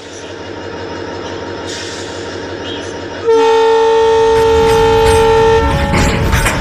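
HO scale model freight train running past with a rising rumble of motor and wheels. About three seconds in, a loud multi-tone diesel locomotive horn sounds steadily for just over two seconds. Near the end the wheels click over the rail joints.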